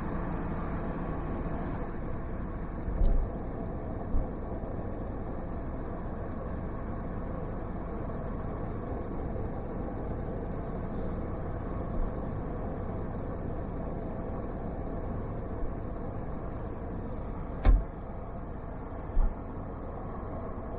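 Steady road and engine noise inside a vehicle's cabin while driving, with a few short thumps; the loudest is a sharp knock near the end.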